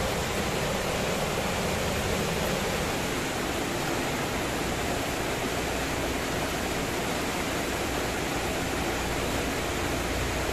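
Fast-flowing river rushing: a steady, even wash of water noise.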